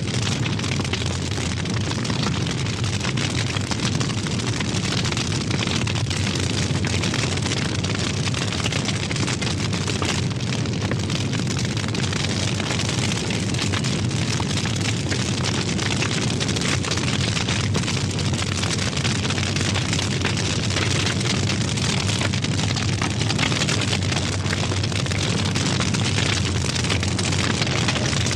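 Large fire burning with a steady, deep, rumbling roar and fine crackling of the flames.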